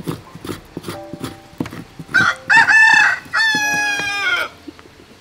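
A rooster crows loudly starting about two seconds in, one call lasting a little over two seconds with a short break in the middle. Before it, a metal spoon clicks and scrapes against a plastic tub while scooping ice cream.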